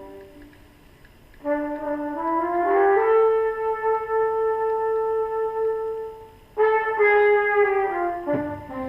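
Background music with a brass melody: a rising run of notes climbs to one long held note, then a new phrase steps back down near the end.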